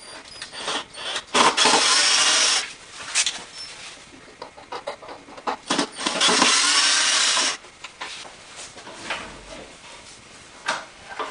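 Cordless drill running twice, each time for about a second and a half, backing screws out of a wooden bandsaw frame, with short knocks and clatter of wooden parts between and after.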